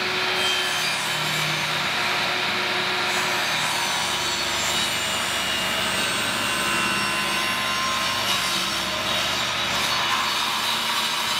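Table saw running steadily while a board is pushed through the blade, ripping wood.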